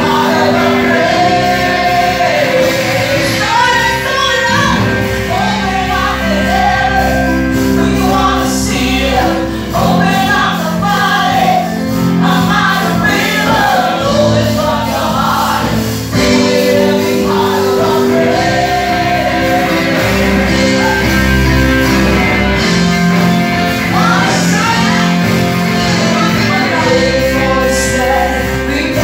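Live contemporary worship music: several women singing a praise song together into microphones over an amplified band of drums, electric guitar and sustained keyboard chords, filling a large hall.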